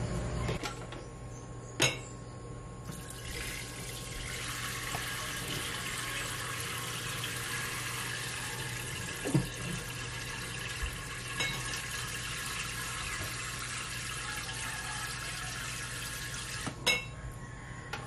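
Water running in a steady stream, as from a tap into a sink. It starts about three seconds in and stops shortly before the end, with a sharp click just before it starts, a short knock midway and another click as it stops.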